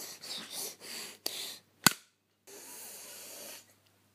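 Handling noise from a handheld phone being swung about: breathy rustling close to the microphone, then two sharp knocks a little over a second in and just before two seconds in. After a brief dead gap comes a steady hiss that drops out near the end.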